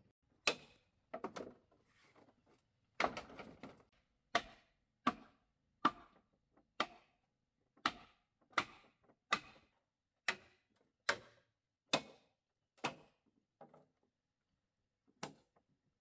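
Repeated sharp blows of a hand tool striking bamboo, in a steady rhythm of a little over one blow a second, each with a short ring. A few uneven knocks and a brief scraping rustle come before the rhythm settles, about three seconds in.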